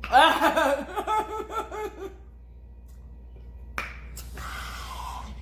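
A woman laughs in short repeated bursts for about two seconds, then a click near the end is followed by a long, breathy hiss, like air drawn hard through a mouth burning from spicy noodles.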